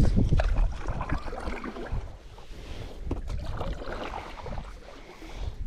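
Water splashing and lapping around a paddleboard, with wind gusting on the microphone. The gusts are strongest at the start and ease off through the middle.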